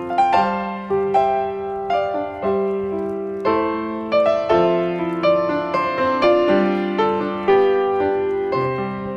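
Background piano music: a slow melody of struck notes, about two a second, each ringing out and fading over held lower notes.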